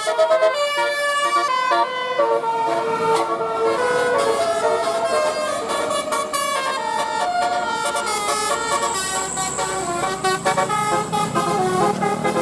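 Bus telolet horn, a set of multi-trumpet air horns, playing a quick melody of stepped notes.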